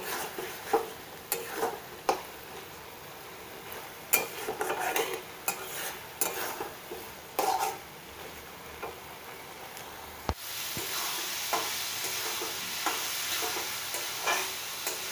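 A long-handled metal spatula stirring a thick, nearly dry snail curry in a steel karahi on a gas stove: irregular clinks and scrapes against the pan over a low sizzle. About ten seconds in, the sound changes abruptly to a steadier, louder sizzling hiss with a few more clinks.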